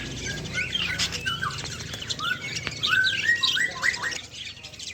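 Many caged songbirds chirping and whistling over one another in quick, short calls that slide up and down in pitch.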